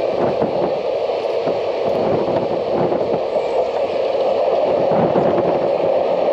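Moving passenger train heard from an open coach doorway: a steady rush of wheel and rail running noise, with wind buffeting the microphone.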